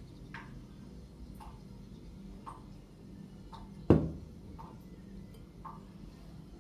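A clock ticking about once a second, with a low steady hum underneath. About four seconds in, one loud knock as a bowl is set down on the table.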